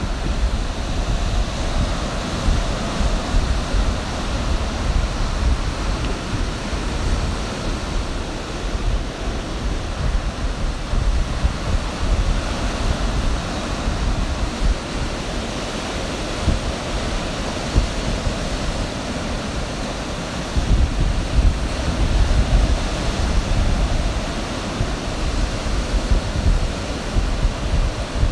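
Ocean surf washing in steadily, with wind rumbling on the microphone in gusts, strongest about two-thirds of the way through.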